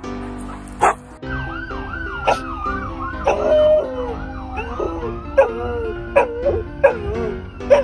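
An emergency-vehicle siren warbling, with a dog howling along in wavering calls, over background music with sharp clicks every second or so.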